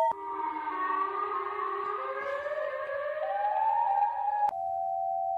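Synthetic Emergency Alert System-style alarm: several electronic tones slide slowly upward together like a siren for about four seconds, then cut suddenly to a single steady tone.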